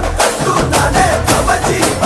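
Background music with a steady drum beat and a singing voice.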